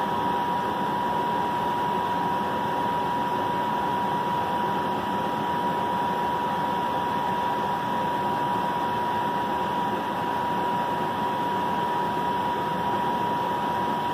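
Steady background hiss with a constant thin whine.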